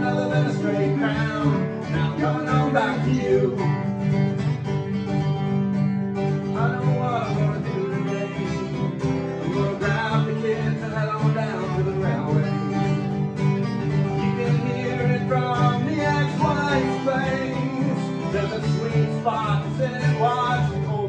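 Country-style song played live: a strummed acoustic guitar under a picked lead guitar line, with a man singing at times.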